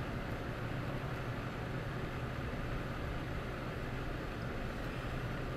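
Steady engine hum and tyre noise heard from inside a vehicle's cab, cruising at about 34 mph on a wet, slushy road.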